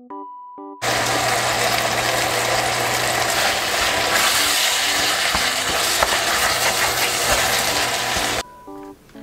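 Spicy stir-fried pork sizzling in a stainless steel pot as it is stirred with a wooden spatula: a loud, even hiss over a steady low hum. It starts about a second in and cuts off suddenly near the end.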